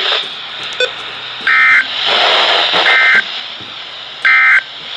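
NOAA Weather Radio Emergency Alert System end-of-message signal: three short bursts of two-tone digital data, about a second and a half apart, over steady radio static hiss.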